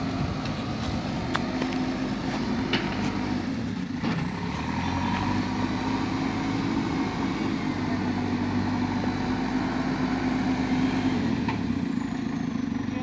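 Backhoe loader's diesel engine running steadily under load while its front bucket scrapes and pushes soil, with a faint high whine and a few light knocks.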